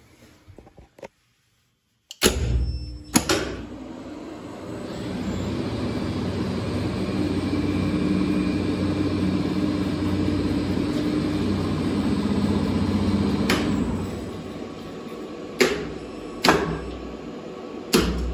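Geared traction lift machine running a trip: sharp clunks about two seconds in as it starts, then the electric motor and gearbox run with a steady hum and whine for about ten seconds before slowing, and three more sharp clunks near the end as it stops.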